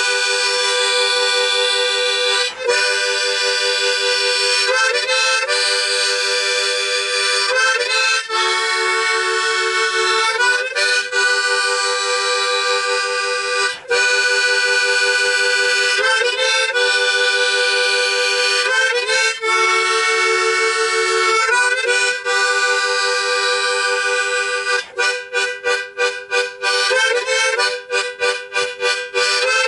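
Solo harmonica playing a melody, with several notes sounding together and short breaks between phrases. Near the end it changes to a fast pulsing rhythm of about four pulses a second.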